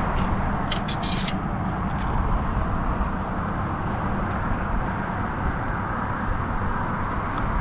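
Steady rumbling background noise, with a few short clicks about a second in.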